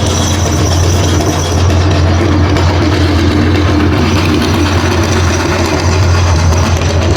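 Electric meat grinder running steadily with a strong low motor hum and a gritty churning over it, as it grinds Orbeez water beads.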